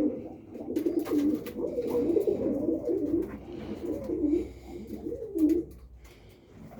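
Roller pigeons cooing, several overlapping, wavering coos that die away near the end.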